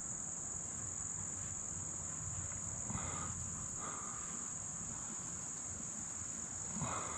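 Steady high-pitched insect chorus of summer crickets, with faint brief swishes of a rag wiping a deer mount's fur a few times.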